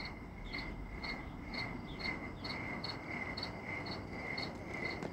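Crickets chirping in an even rhythm, about two chirps a second, over faint steady background noise.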